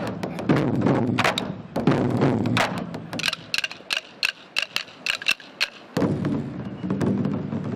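An ensemble of large Korean barrel drums (buk) struck with wooden sticks. About three seconds in the drumming drops out and the drummers click their sticks together overhead in a run of sharp, dry clicks. About six seconds in the full drums come back in.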